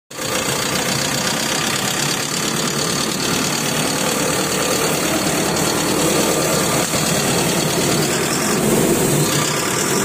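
Eicher tractor's diesel engine running steadily, heard close up.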